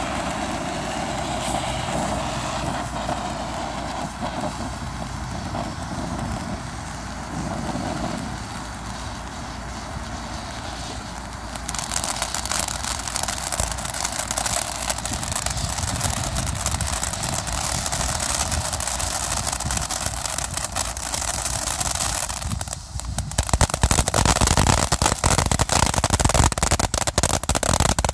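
A UFO ground fountain firework spraying steadily with a rushing hiss. About twelve seconds in, crackling joins the hiss, and from about twenty-three seconds a denser, louder crackle takes over.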